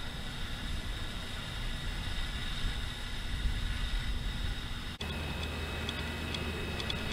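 Wind buffeting the microphone outdoors: an uneven low rumble over a steady hiss. About five seconds in it cuts sharply to a steadier low hum with a few faint ticks.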